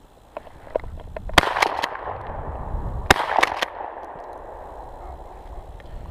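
Shotgun fired twice, about 1.7 seconds apart. Each loud shot is followed by smaller sharp cracks and a short echo.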